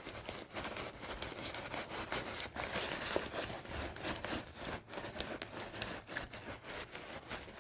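The frame wire of an Osprey Aether 60 backpack being flexed by hand, creaking with a run of irregular small clicks and crackles as it rubs against the pack. The creak is weak because the wire is not fully seated in the pack and is under little tension; it is the pack's known creaking fault.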